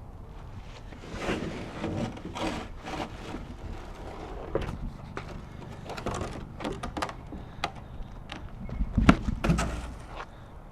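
Objects being handled and knocked about: scattered knocks, clatters and scraping, with a heavy thump about nine seconds in.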